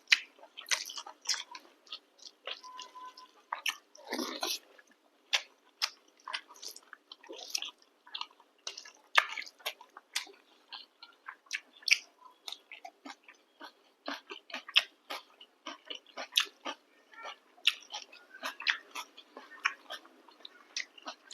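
Close-up eating sounds: a person chewing and biting food with the mouth near the microphone, many short irregular wet clicks and crunches.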